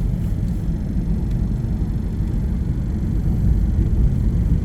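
Steady low road rumble of a car driving at moderate speed, engine and tyre noise heard from inside the cabin.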